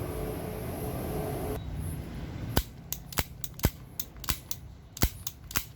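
A string of sharp, irregular clicks, about a dozen, beginning about two and a half seconds in after a steady hum.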